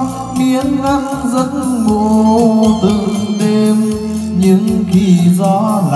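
A slow Vietnamese song plays back loudly through loudspeakers driven by an MC CA9 power amplifier, with a melodic line gliding over a steady bass.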